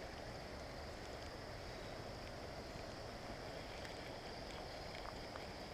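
Steady, even outdoor background rush with no distinct events, and a couple of faint ticks near the end.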